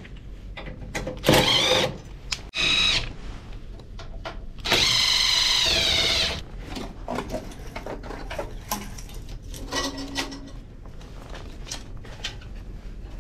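Power driver running in several short bursts and one longer run of about a second and a half near the middle, its whine wavering in pitch. Metal parts and tools click and knock in between as the machine is taken apart.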